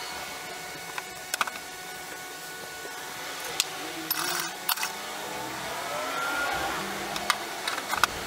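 Scattered light clicks and knocks of a steel ratchet being handled and set down on a wooden workbench, over a steady background hum.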